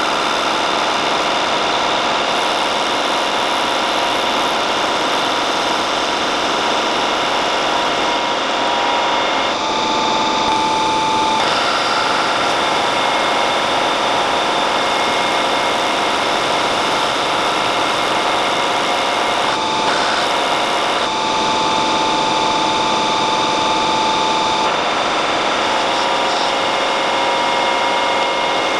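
Metal lathe running, turning a metal bracket held in a four-jaw chuck: a steady machine whine with several steady tones. The sound changes briefly around ten seconds in and again around twenty.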